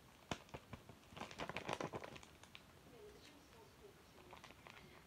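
Quiet handling noise: a sharp tap, then about a second of crinkling and rustling from a paper sheet and a plastic wet-wipe packet being handled.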